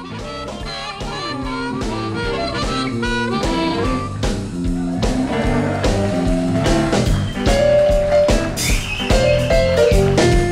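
Instrumental background music with a steady beat, swelling in over the first couple of seconds.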